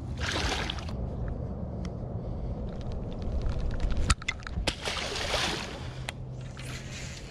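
A hooked bowfin splashing at the water surface beside the boat hull, with scattered clicks and a sharp knock about four seconds in, over a low steady hum.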